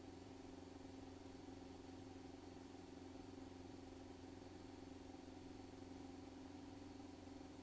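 Near silence with a faint, steady drone of the Cessna Skyhawk's piston engine in cruise.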